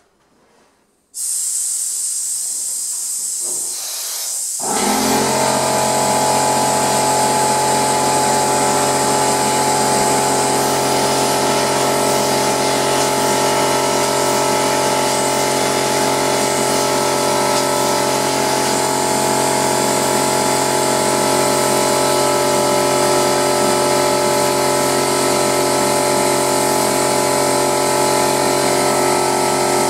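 Drywall texture hopper gun spraying on compressed air, a loud steady hiss that starts about a second in. A few seconds later an air compressor kicks on and runs steadily beneath the hiss.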